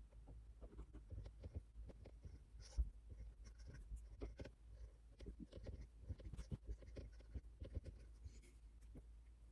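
Faint pen writing on paper: irregular short scratching strokes and light taps, with one sharper tap nearly three seconds in.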